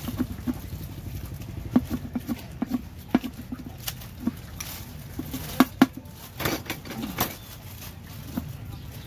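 Irregular knocks, taps and clatter of kitchen utensils and containers as salad ingredients are prepared, with a few sharper clacks about halfway through.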